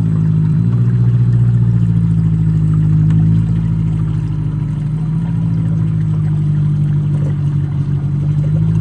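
A 1/10 scale RC crawler's brushed 550 electric motor and gear drivetrain running under throttle while it drives off-road, slowed down to a low, steady hum. Its pitch shifts slightly about half a second in and again at the end.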